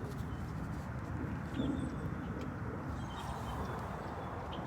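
Steady low background rumble with a few faint high bird chirps scattered through it.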